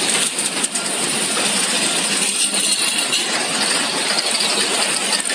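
Freight train of open-top gondola wagons rolling past, steel wheels rattling and clattering on the rails as a steady, dense noise, with a few sharp clicks in the first second.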